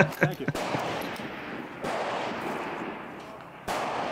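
Two rifle shots about two seconds apart, heard at a distance. Each starts suddenly and trails off slowly. They come from .308 F-TR target rifles being fired at 1,000 yards.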